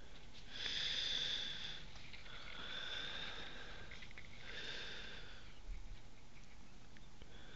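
Husky sniffing and snuffling with its nose pushed into the snow: a few drawn-out sniffs with a thin whistle in them, the loudest about half a second to two seconds in.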